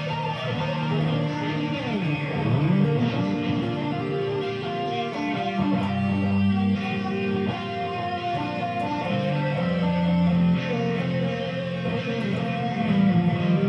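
Electric guitar, a Jackson, played as an amplified jam with held notes and runs. About two seconds in, one note dives in pitch and comes back up.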